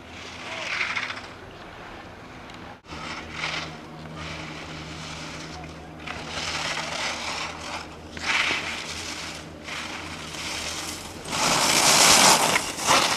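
Skis carving giant slalom turns on hard-packed snow, their edges scraping past in several separate swooshes. The loudest and longest comes about twelve seconds in, as a skier passes close by.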